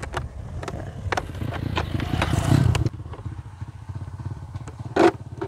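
Plastic clips and body panels of a Yamaha Mio i 125 scooter's front cowling clicking and scraping as they are pried apart by hand, with one loud snap about five seconds in. A motorcycle engine runs in the background.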